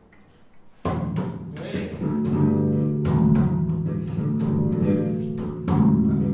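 Electric bass guitar plucked through an amplifier by a beginner: quiet for about the first second, then notes struck and left ringing, with a louder stroke near the end.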